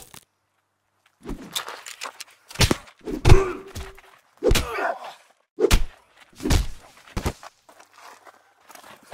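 A hand-to-hand fight: irregular heavy thuds and scuffing of blows, bodies and feet on a dirt path, about ten separate impacts starting a little over a second in.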